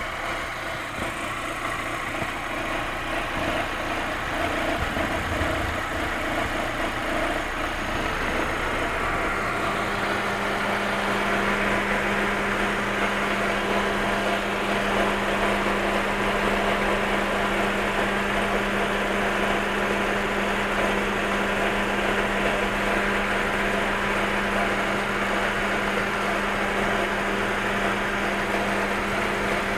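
Fiat car engine idling warm, with a scraping, rubbing noise from the timing-belt area that started after a timing belt change; the owner does not know its cause. A steady hum joins about nine seconds in and winds down with a falling pitch near the end.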